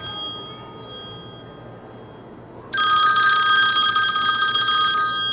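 Mobile phone ringtone ringing: a fading ring, then a loud ring that starts suddenly about two and a half seconds in.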